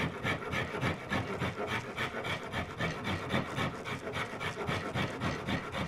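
Surform plane rasping wood off the back of a guitar neck in quick, even, repeated strokes, roughing in the neck contour.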